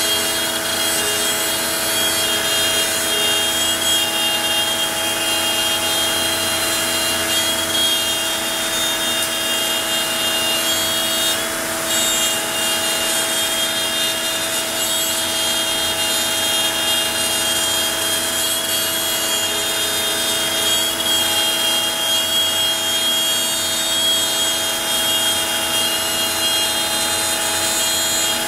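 Onefinity CNC router cutting, the spindle giving a steady high whine over the rasp of the bit in the stock, with a brief dip about eleven seconds in.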